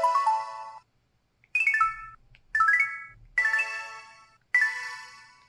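LG-LB2800 mobile phone system tones: five short electronic chimes, one after another with brief pauses between them. Each is a quick run of bell-like notes, and the first climbs upward.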